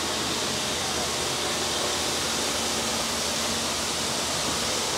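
Steady hiss of a plastic extrusion blow-molding machine running on the factory floor, with a faint low hum under it.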